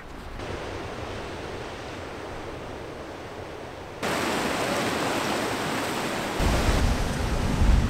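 Sea waves washing and breaking over rocks, a steady hissing surf that gets louder about halfway through. A low rumble joins it near the end.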